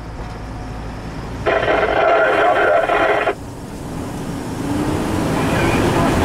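Fire engine running on an emergency run, heard from the cab, with engine and road noise. About a second and a half in, a steady horn blast lasts nearly two seconds and cuts off sharply. After that the engine noise builds steadily.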